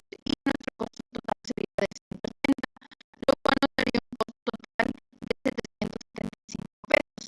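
A woman's voice chopped into many short fragments with brief dropouts between them, so the words are unintelligible: glitching, broken-up recorded audio.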